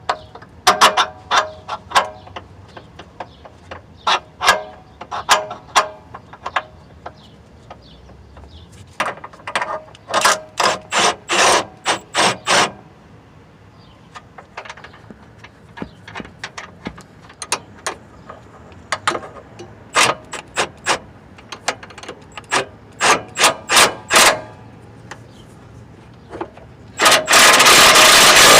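Hand socket ratchet clicking in quick runs of strokes on the 18mm motor mount fasteners, with pauses between the runs. Near the end, a pneumatic or power impact wrench starts with a loud continuous hammering.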